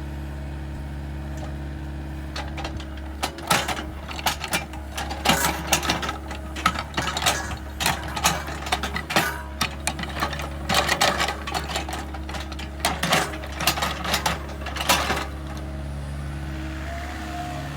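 An excavator moving soil: a steady machine drone, with a dense run of scraping and clattering of soil and stones from about 3 seconds in until about 15 seconds in.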